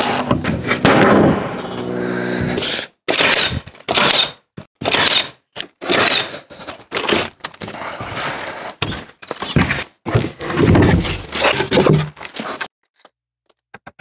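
Plywood formwork sheets being slid off a stack and laid onto the deck: a run of thuds and scrapes, one after another with short gaps, stopping about a second before the end.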